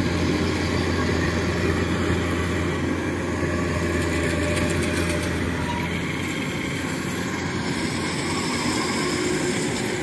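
Kubota DC-93 rice combine harvester running under load as it cuts and threshes rice: a steady diesel engine drone mixed with the mechanical noise of the cutter bar and threshing drum.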